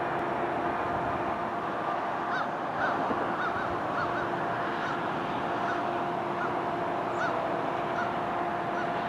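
Geese honking, a string of short calls about two seconds in and repeating irregularly, over the steady hum of a distant freight train approaching behind GE ET44AC locomotives.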